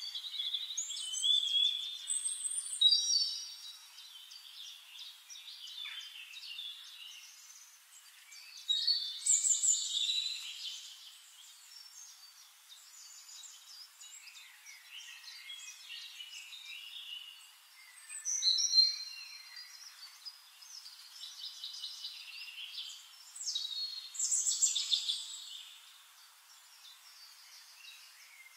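Birds chirping and singing in several bursts of high, warbling and trilling phrases a few seconds apart, with no low sound beneath them.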